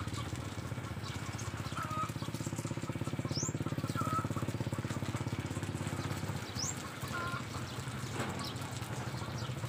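Water spraying from a garden hose onto leafy sunflower plants, over a low, steady, fast-pulsing motor throb. Short bird chirps sound a few times, two of them quick rising whistles.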